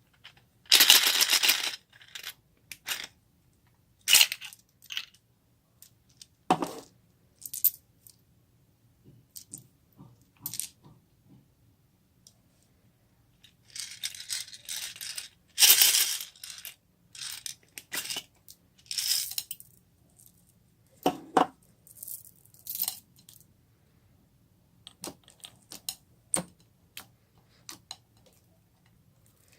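Homemade fluffy slime being squished and pressed by hand, giving irregular bursts of crackling and popping clicks. The loudest bursts come about a second in and around the middle.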